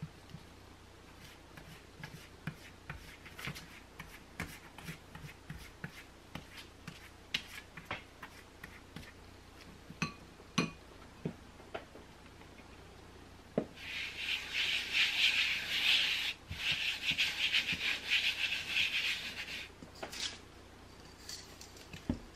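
Flour being rubbed by hand across a bamboo cutting board: a dry, scratchy rubbing that starts about two-thirds of the way in and lasts about six seconds, with a brief break in the middle. Before it, scattered light taps and clicks of a silicone pastry brush against a bowl and baking tray.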